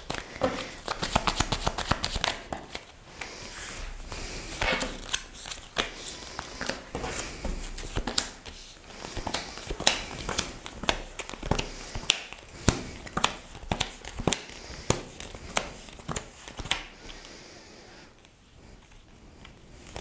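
Tarot cards being shuffled and handled by hand: a long run of short papery flicks and slaps of card on card, thinning out and quieter near the end.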